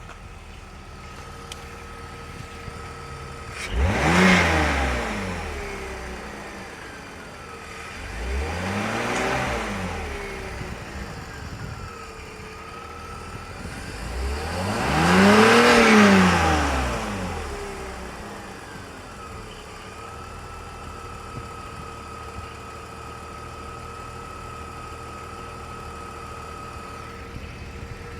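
BMW E46 engine idling, then revved three times: a quick sharp blip, a smaller one, and a longer, higher one, each falling back to idle. A thin steady whine sits over the idle. The owner finds the engine's noise weird.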